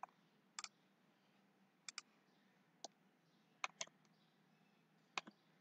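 Computer mouse clicking: about seven short sharp clicks, twice in quick pairs, against near silence.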